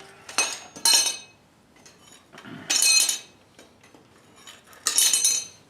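Metal objects clinking and clattering against each other: about four separate sharp, ringing clanks, irregularly spaced.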